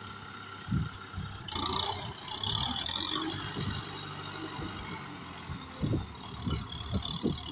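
Kubota tractor's diesel engine running steadily, with irregular low thumps and a stretch of higher hissing noise about a second and a half in.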